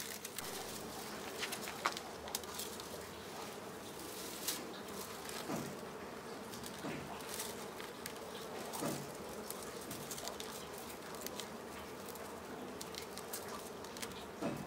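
Dry pipe-grass stalks crackling and rustling in the hands as they are bent and woven around a hand broom's bound head, with short sharp clicks scattered through. Flying insects buzz steadily underneath.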